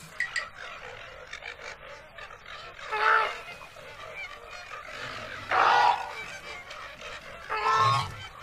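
Flamingos honking: three separate goose-like calls a couple of seconds apart, the middle one the longest and loudest, over a faint steady hiss.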